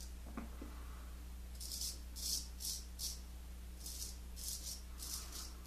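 Gold Monkey 777 straight razor scraping through lathered stubble on the upper lip and chin in a dozen or so short strokes, in quick clusters of two or three.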